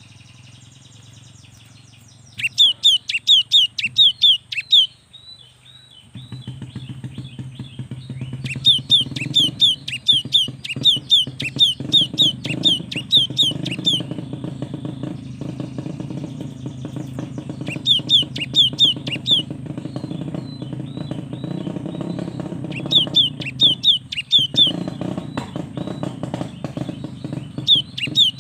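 A gelatik batu (cinereous tit) singing in bursts of fast, high, repeated notes, with softer calls between the bursts. A steady low background noise comes in about six seconds in.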